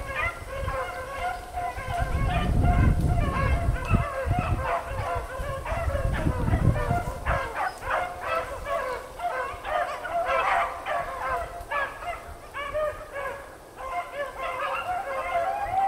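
A pack of beagles in full cry, many dogs baying at once and without a break while running a rabbit. A low rumble underlies the baying from about two to seven seconds in.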